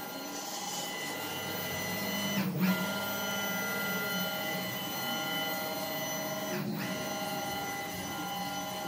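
Stepper motors of an Emco Concept Mill 55 driving its axes: a steady whine of several tones that breaks off briefly twice, as the axis motion stops and restarts.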